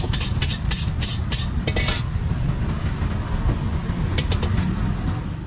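Clatter at a street-food stall: clusters of quick sharp clicks and clinks, thickest in the first two seconds and again about four seconds in, over a steady low rumble. The sound fades out near the end.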